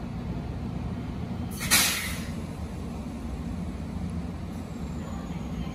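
Standing E257-series electric train with its onboard equipment running in a steady low hum; about a second and a half in, one short, loud hiss of compressed air being let out of its air system, fading within about half a second.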